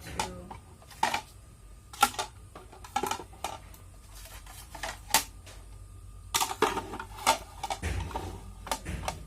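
Kitchenware being handled and set down: an irregular run of light clicks, clinks and knocks, about a dozen in all, with a small cluster shortly after the sixth second.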